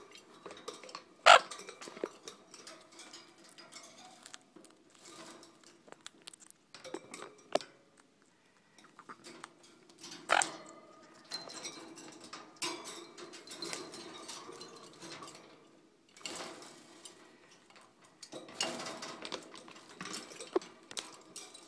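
Sun conures splashing and fluttering their wet wings in a clip-on plastic bird bath, with irregular sharp clicks and knocks against the dish and cage; two louder knocks stand out, about a second in and about ten seconds in.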